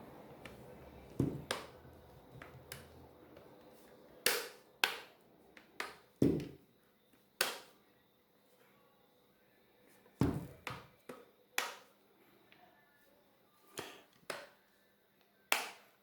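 Irregular sharp plastic clicks and taps, about a dozen, from a tablet's back cover being handled and pressed back into place on the body, with a few louder snaps among softer ticks.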